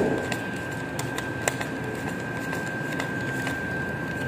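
1000-peso banknotes being counted by hand, the paper notes flicked one after another in short soft clicks, over a steady room hum with a constant high tone.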